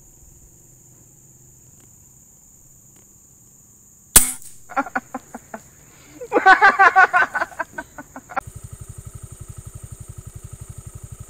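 A single PCP air rifle shot cracks about four seconds in, followed by a few seconds of loud, warbling chatter. From about eight seconds a fast, even low pulsing runs on.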